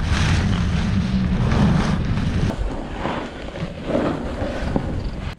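Wind buffeting an action camera's microphone while riding fast down a ski slope, a loud, steady rumble with a hiss of snow over it. It cuts off suddenly near the end.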